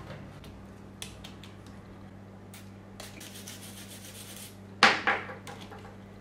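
A toothbrush scrubs a small slide switch on a portable radio's circuit board to clean its contacts with isopropyl alcohol, giving a scratchy brushing sound with a few light clicks. About five seconds in there is one sharp knock, the loudest sound.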